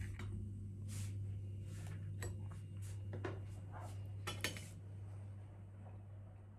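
Fork tapping and scraping on a plate while eating a slice of tart: several light clinks spaced about a second apart, over a low steady hum.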